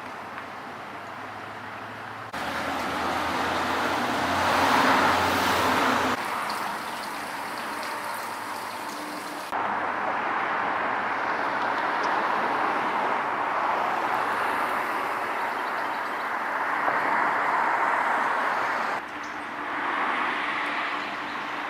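Road traffic noise, a steady rush of cars and tyres, in several short clips that cut abruptly from one to the next. It swells louder in one stretch early on, like a vehicle passing.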